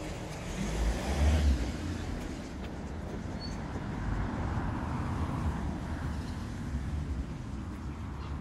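Street noise of road traffic, with a low rumble that swells about a second in.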